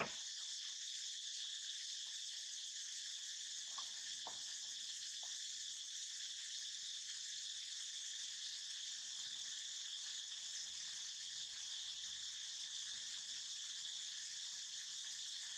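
Steady high-pitched insect chorus, an unbroken chirring at an even level, with a few faint short ticks about four to five seconds in.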